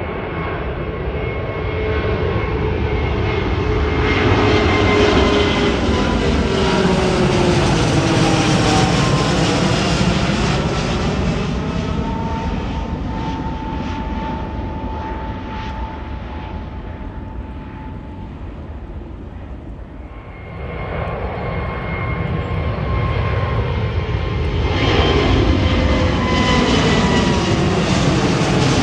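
Boeing 787 jet airliners climbing out after take-off. The first passes overhead, its engine tones falling in pitch, and fades away. About two-thirds of the way in, a second 787's engines come in loud at full climb power.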